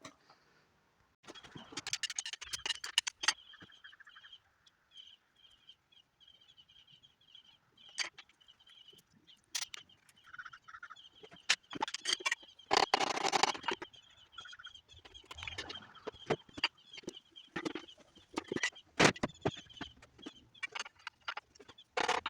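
Fast-forwarded engine-teardown work on a Dodge 318 V8: rapid clicks, clanks and knocks of tools and engine parts, sped up so they come quick and high-pitched, with a broken high whir running through much of it and busier bursts a couple of seconds in, about midway and near the end.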